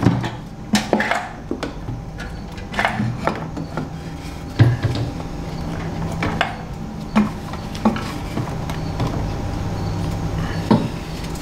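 Irregular metal clinks and knocks as an aftermarket intake manifold is worked loose and lifted off a Honda K24 engine, with one louder knock about four and a half seconds in.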